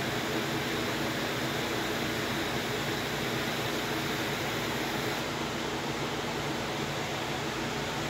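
Steady background hiss with a faint low hum, unchanging, with no distinct events.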